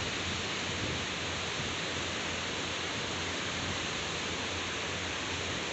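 Steady rushing noise of the sea shore, the wash of surf together with wind.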